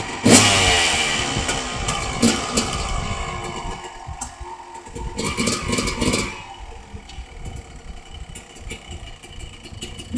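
Honda CR250R two-stroke single-cylinder dirt-bike engine given a sharp throttle blip just after the start, its revs falling away quickly. A smaller blip follows about two seconds in and another burst of revs around five to six seconds in, with the engine running at low revs in between and afterwards.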